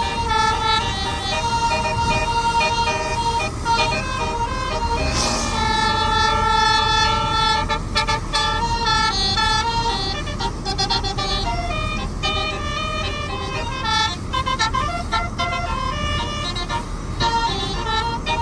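A basuri telolet horn on a medium tour bus playing a melody: a run of loud air-horn notes that step from pitch to pitch every fraction of a second without pause. A short noisy rush comes about five seconds in.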